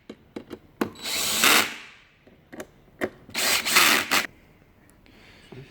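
Power drill driving screws into the back piece of an office chair, in two runs of about a second each, with small clicks between them.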